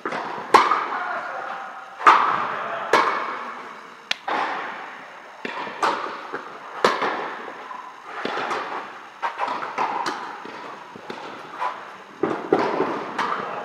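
Tennis rally: a ball struck by strings and bouncing on the court, a sharp hit about every second, each echoing in a large hall.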